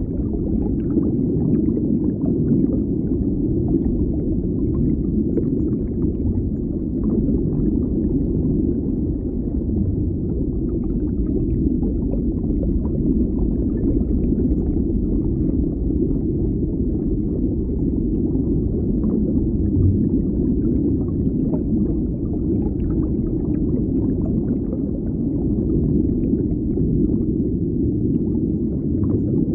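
Underwater ambience: a steady, muffled low rumble of deep water, with faint scattered crackles over it.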